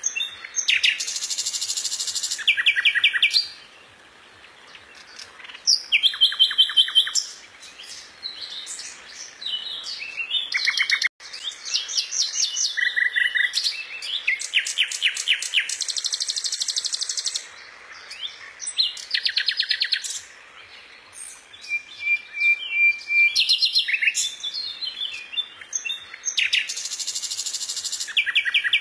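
A songbird singing a long, varied song of fast trills, rattles and sharp chirps, in phrases broken by short pauses.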